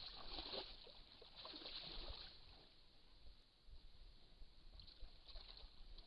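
Brown bears wading in a shallow muddy pool: faint sloshing and splashing of water, busiest in the first two seconds, then softer, with another brief stir near the end.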